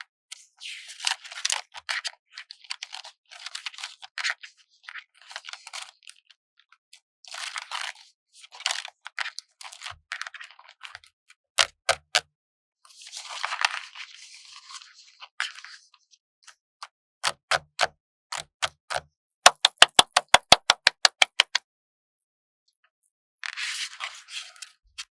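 Stickers being peeled slowly off their backing sheet, crackling and rustling in short bursts. From about two-thirds of the way through comes a run of sharp clicks that quickens to several a second. These clicks are the loudest part, and the crackle returns near the end.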